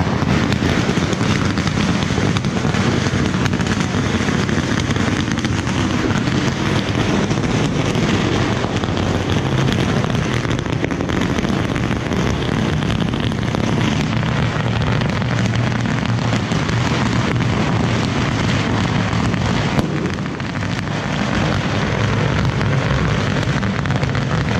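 A long firecracker string (a roll sold as 500,000 bangs) going off, a dense unbroken crackle of rapid bangs that eases briefly about 20 seconds in.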